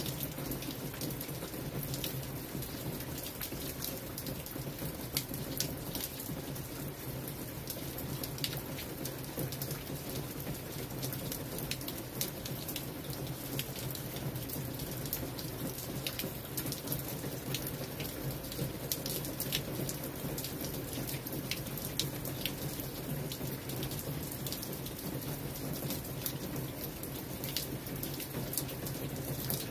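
Steady rainfall: an even hiss with many sharp ticks of individual drops striking.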